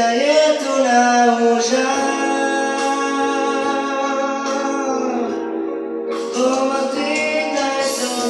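A man singing long, held notes with vibrato over his own accompaniment on a Yamaha PSR-SX700 arranger keyboard, with sustained chords and bass underneath. The voice breaks off briefly after about five seconds, then comes back in.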